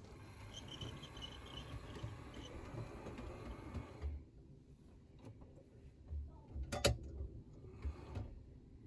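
Quiet handling noises on a model railway: faint low knocks and one sharp click about seven seconds in, as a hand works among the model locomotives on the track.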